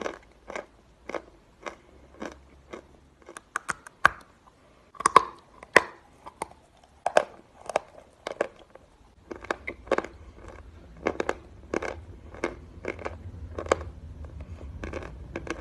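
A large chunk of chalk being bitten and chewed close to the microphone: dry, crisp crunches about two a second, with quick runs of sharp snaps a few seconds in as pieces break off.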